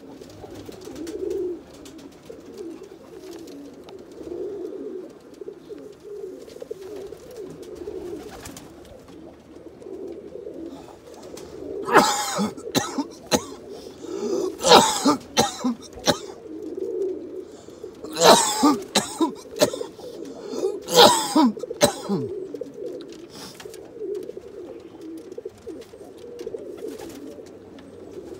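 Black tippler pigeons cooing continuously. Several loud, harsh bursts come in two clusters, about twelve and about eighteen seconds in.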